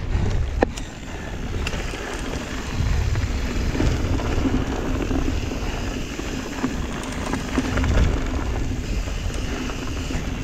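Mountain bike riding on a dirt trail: a steady rush of rolling noise with wind rumbling in surges on the microphone, and a few sharp clicks and rattles in the first couple of seconds.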